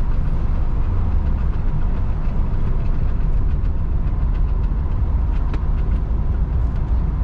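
Classic American car driving on the road, heard from inside: a steady low engine and road rumble with a faint steady whine above it.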